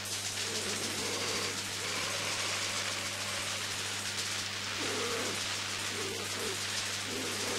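A pause between songs on a lo-fi live concert recording, with the band not playing: a steady low hum and hiss, and a few scattered short low-pitched sounds.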